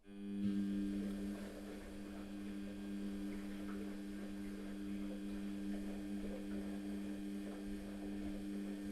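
Washing machine running with a steady motor hum of two low tones over a low rumble, cutting in suddenly at the start.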